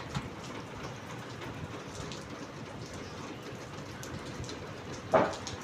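Heavy rain falling steadily, with scattered drips and splashes, and a short louder sound about five seconds in.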